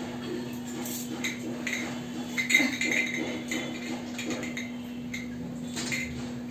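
Light metallic clinks of brass bowls and dishes on a dining table, a scattered handful with a small cluster about halfway through, over a steady low hum.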